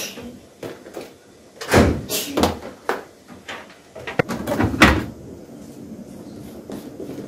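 Plastic detergent bottles knocking and rattling as they are taken out of a kitchen cupboard, then the cupboard door shut about five seconds in. A faint steady hum follows.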